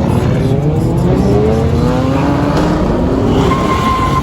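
A car engine accelerating hard, its pitch rising steadily for about three seconds.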